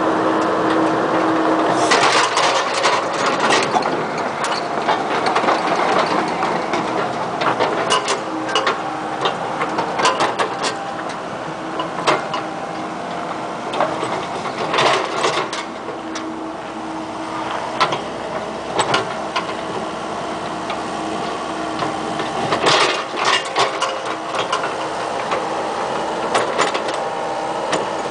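Komatsu PC78MR-6 compact excavator's diesel engine running steadily while its hydraulic bucket digs, with frequent sharp clanks and scrapes of the steel bucket against rocks and rubble coming in clusters.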